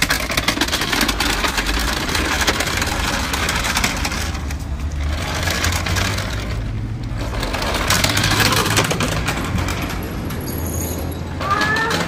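The plastic wheels of a small toy Henry vacuum cleaner rattling and clattering over brick paving as it is dragged along by its hose, easing off briefly twice.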